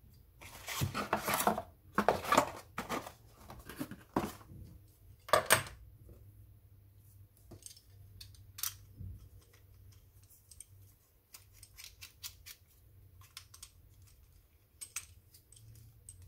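Hands handling a desk microphone and its plastic holder and stand: loud rubbing and scraping for the first five seconds or so, then scattered light clicks and taps of the parts being fitted together.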